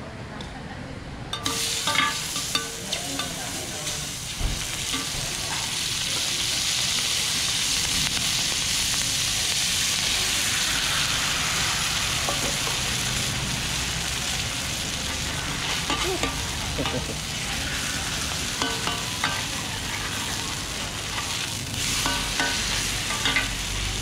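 Mussels and batter sizzling in oil on a hot flat steel pan for a crispy mussel pancake (hoi tod). The sizzle starts suddenly about a second and a half in, swells, then eases somewhat later, with metal spatulas scraping and tapping the pan now and then.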